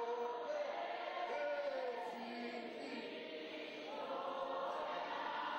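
A man singing slowly through a microphone, in long held notes like a chant, with a choir-like fullness to the sound.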